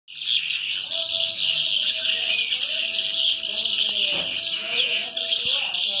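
Many caged birds chirping in a continuous, dense chorus, with a quieter, lower wavering tone gliding up and down beneath it.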